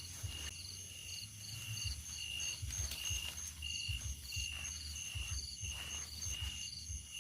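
Night insects chirping in a steady chorus: short high chirps repeating about once or twice a second, with faster pulsed trills above them. Irregular low thumps underneath.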